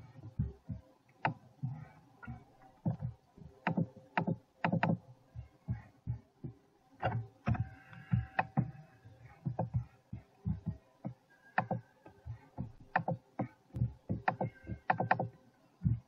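Irregular series of sharp clicks and light knocks from a computer mouse and keyboard on a desk, a few every second with short gaps, over faint steady tones.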